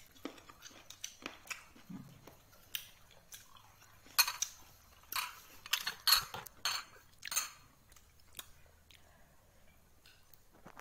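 A person eating by hand: biting and chewing, with clinks and scrapes against a plate and a glass bowl. A cluster of sharp, noisy clicks about halfway through is the loudest part.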